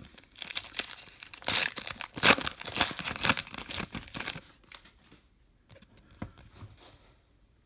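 Trading card pack wrapper being torn open and crinkled, a dense rustling that is loudest in the first few seconds, then gives way to faint handling rustles from about the middle on.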